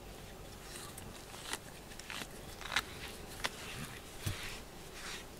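A pink bristled grooming brush stroked repeatedly through a cat's fur: a series of short scratchy brushing strokes, about one or two a second, with a few sharper clicks and two dull bumps near the end.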